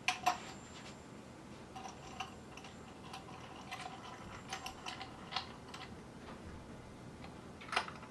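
Irregular light clicks, taps and small knocks from a microphone shock mount and mic stand being handled and adjusted, a couple at the start and a louder click near the end.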